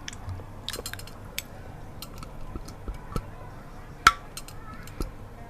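Light clinks and taps of a spoon against a honey jar, scattered irregularly, with one sharper clink about four seconds in.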